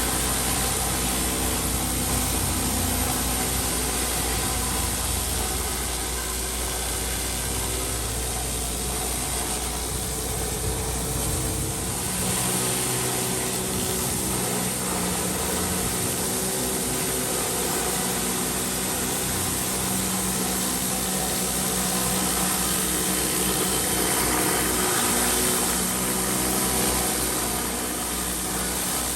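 Pressure washer's engine running steadily, with a change in its low hum about twelve seconds in.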